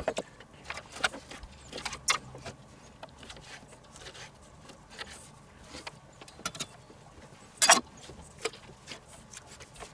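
Chef's knife chopping bacon on a wooden cutting board: irregular knocks of the blade on the wood, with one louder clatter about three-quarters of the way through.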